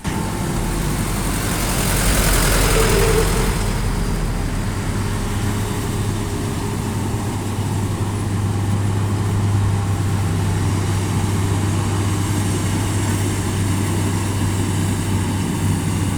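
Rice combine harvester running steadily while harvesting, with a steady low engine hum and a louder rush about two seconds in.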